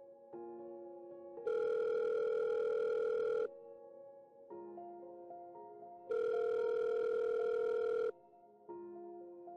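Telephone ringback tone: a steady two-second ring heard twice, about four and a half seconds apart, while an outgoing call rings at the other end. Soft piano music plays underneath and between the rings.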